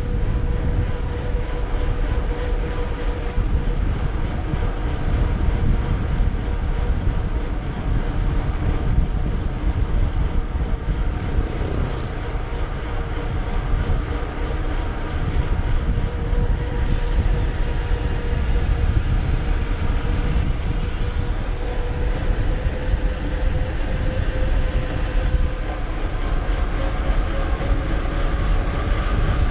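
Wind rushing over the camera's microphone and tyre noise on wet asphalt as a mountain bike coasts fast downhill, with a faint steady hum underneath. A brighter hiss joins in for several seconds past the middle.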